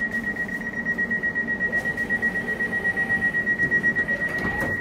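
Door warning beeper on a Bombardier Class 720 electric train: a single high-pitched tone pulsing rapidly and evenly, which stops near the end.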